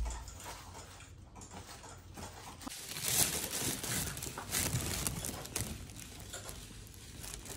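Thin plastic carrier bag rustling and crinkling as it is opened and handled, loudest from about three to five seconds in.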